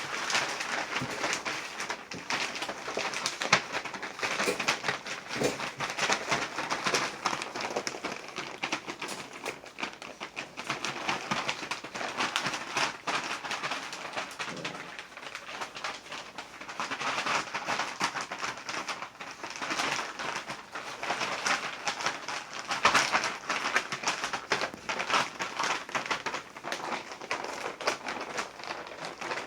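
Litter of six-week-old pit bull puppies whimpering and squeaking, with many small clicks and scuffs mixed in.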